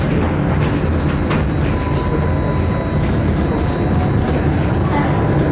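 Tram riding along its street track, heard from inside the car: a steady low rumble of wheels on rail with a few clicks, and a faint high whine that comes in about two seconds in.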